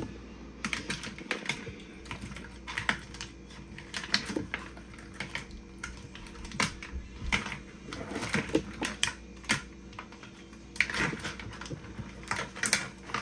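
Irregular light clicks and taps of kitchen handling, spaced unevenly over several seconds, with the sharpest cluster about eleven seconds in.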